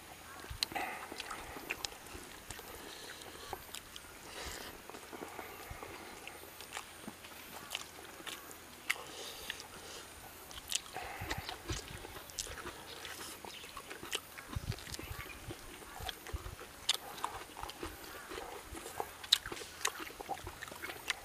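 Close-up eating sounds of a person chewing rice and chicken: wet chewing and lip smacks with irregular sharp mouth clicks.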